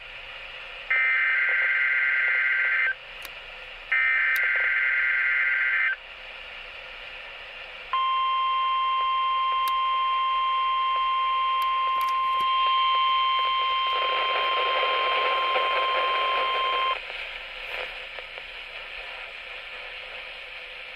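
NOAA Weather Radio Emergency Alert System test received over a radio. Two SAME header data bursts come first, each a two-tone digital screech about two seconds long. A couple of seconds later the 1050 Hz warning alarm tone sounds steadily for about nine seconds, with radio static rising under it for its last few seconds. Faint static follows once the tone cuts off.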